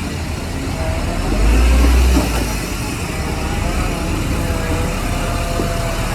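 Heavy earthmoving machinery running: a continuous diesel engine noise with a louder low rumble swelling for about a second, a second and a half in, and a faint thin whine on top later on.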